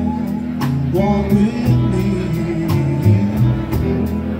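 Rockabilly band playing live between sung lines: a drum kit keeping a steady beat under upright bass and guitars.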